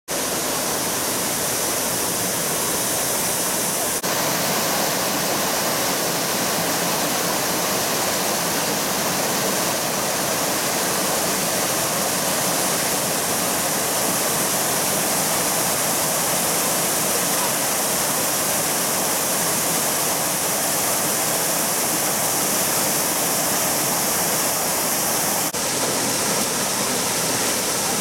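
Small cascading waterfall and shallow rocky stream rushing steadily.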